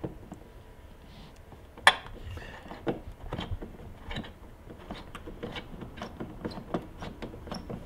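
Screwdriver loosening a small hose clamp on a snowmobile air box: small irregular metal clicks and ticks as the clamp screw is turned, with one sharper click about two seconds in.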